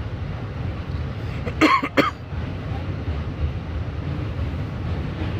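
Subway train running across the Manhattan Bridge, heard from inside the car as a steady low rumble. Two short loud bursts come close together about two seconds in.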